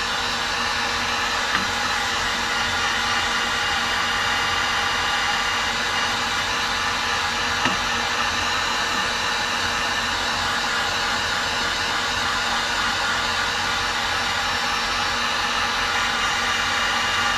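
Electric heat gun running steadily, an even rush of air with a steady hum, as it shrinks heat-shrink tubing over a wire connection.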